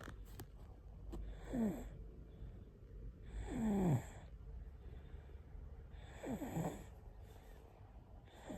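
Sleeping baby snoring: three snores about two and a half seconds apart, each falling in pitch, with another starting near the end.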